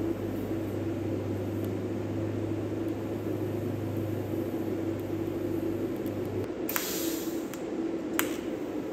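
TIG welding arc tack-welding a steel rod bracket to a bushing: a steady electrical buzz with a hiss that cuts off about six and a half seconds in, followed by a short hiss and a sharp click near the end.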